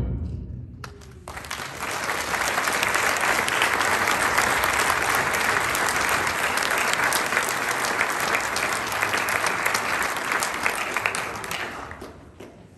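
An audience applauding in a hall right after a concert band's final chord dies away. The clapping starts about a second in, holds steady, and fades out near the end.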